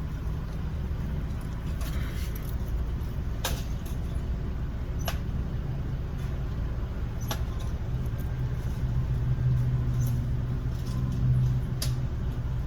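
Car engine idling with a steady low hum, heard from inside the car, with a few sharp clicks now and then.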